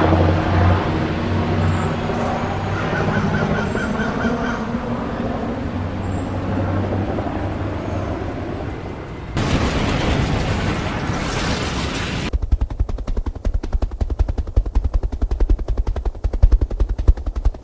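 Helicopter running close by with its rotor turning, a steady low hum. About nine seconds in comes a sudden burst of rushing noise lasting about three seconds. From about twelve seconds in there is a fast, even rattle of rapid strikes.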